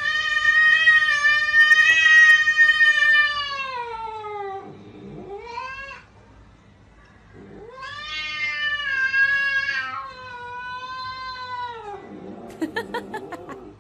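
Cat yowling in long, drawn-out calls: a first call of about five seconds that slides down in pitch at its end, a short call, then two more long calls. A few short clicks come near the end.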